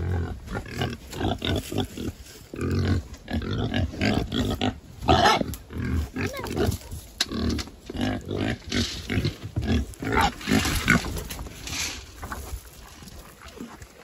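Pigs grunting in a quick run of short, low grunts, with a few louder, higher calls about five seconds in and again around ten to eleven seconds. It quietens near the end.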